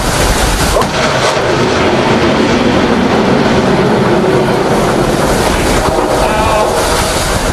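A C-705 anti-ship missile launching from a warship: the rocket motor's roar starts abruptly and holds as a loud, steady rushing noise.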